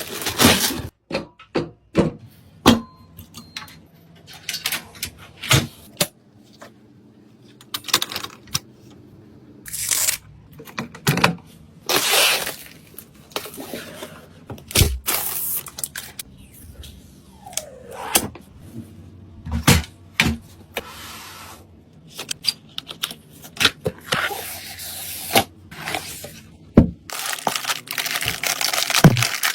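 Handling noise from assembling computer parts: irregular clicks and knocks of parts being set down and fitted, with a few longer rustling noises.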